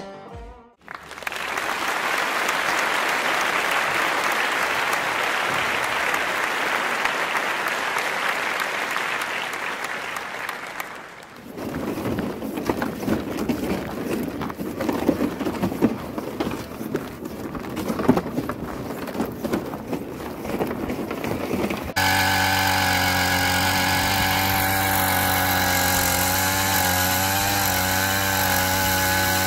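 A steady hiss, then a crackling rustle. About seven seconds before the end, a gas-powered ice auger's two-stroke engine is heard running steadily, drilling through the ice.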